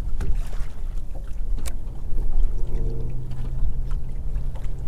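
Choppy lake water slapping and lapping against an aluminium-style bass boat's hull, with wind rumbling on the microphone and scattered sharp clicks and splashes. About two and a half seconds in, a steady low hum starts and holds.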